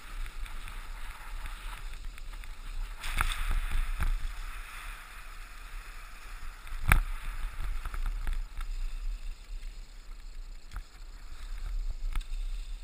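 Skis sliding on packed snow, a steady hiss with low wind rumble on the skier's body-worn camera, broken by a few sharp clicks, the loudest about seven seconds in.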